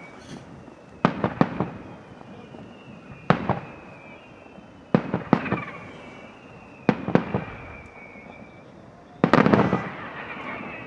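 Daylight fireworks display: aerial shells and salute bombs going off in quick groups of one to three sharp bangs every couple of seconds, with a denser, louder volley near the end. High whistling tones glide slowly downward between the bangs.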